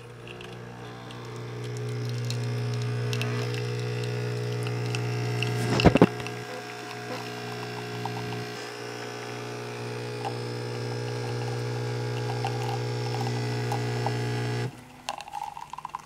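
Single-serve espresso machine's pump buzzing steadily while brewing a shot into a ceramic mug, with a brief louder burst about six seconds in. The pump cuts off suddenly near the end when the shot finishes.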